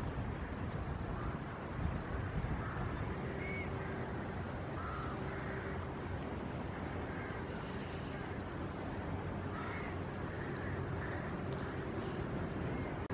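Open-air waterside ambience: wind on the microphone over a low, steady drone, with short bird calls several times.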